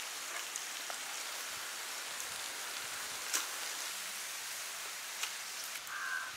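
Steady sizzling hiss of banana-leaf-wrapped fish frying on a hot iron pan, with a few sharp ticks.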